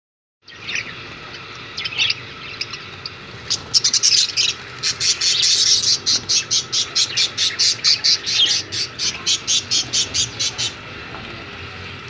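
Budgerigars chirping: a few scattered chirps, then a quick, even run of short high chirps at about four a second that stops shortly before the end.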